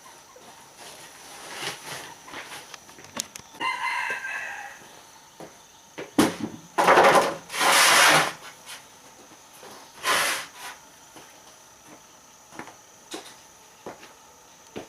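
Chickens: a rooster crowing and hens clucking, with a short pitched call about four seconds in and a few loud, harsh bursts in the middle.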